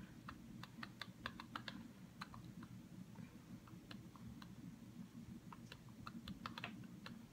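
Faint, irregular small clicks, several a second, over a low steady hum.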